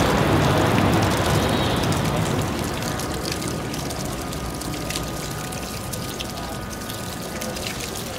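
Low city-traffic rumble that fades over the first two seconds, giving way to water running and splattering from a garden hose.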